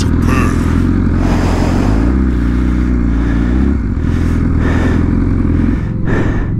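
BMW S1000RR's inline-four engine running at low revs close to the microphone; the revs rise slightly about two seconds in and settle back near four seconds.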